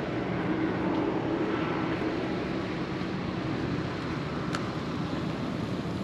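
Steady low rumble of motor traffic, with a faint hum running under it and one brief high chirp about four and a half seconds in.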